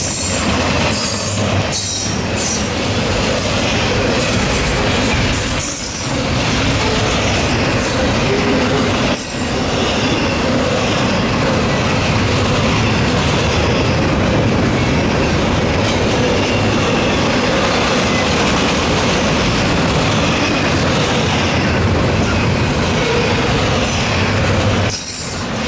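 Double-stack intermodal freight train's well cars rolling past at close range: a steady loud rumble and rattle of steel wheels on the rail, dipping briefly a few times as gaps between cars go by.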